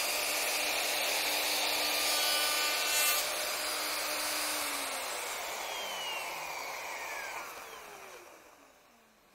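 Festool OF 2200 plunge router running at full speed as its cutter mills a dovetail groove in a timber beam. It is switched off about halfway through, and the motor winds down with a steadily falling pitch, fading out near the end.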